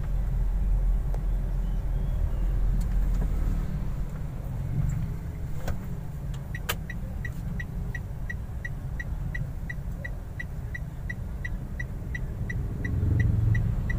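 Inside a small car's cabin, a steady low engine and road rumble as the car rolls slowly. About halfway through, a click is followed by the turn-signal indicator ticking evenly, about three ticks a second.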